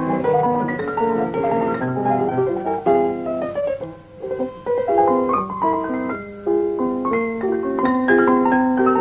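Piano playing a brisk passage of many short notes, easing off briefly about four seconds in.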